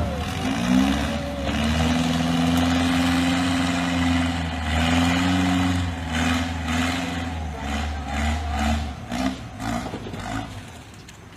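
A heavy machine's engine running. Its pitch climbs just after the start, then holds steady, then breaks into uneven pulses and stops about nine seconds in.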